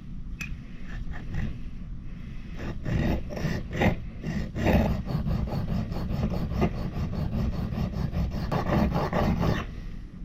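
Steel fire striker scraped back and forth on a wet coarse sharpening stone, a rasping grind in quick repeated strokes that starts a couple of seconds in and stops just before the end, over a low steady rumble.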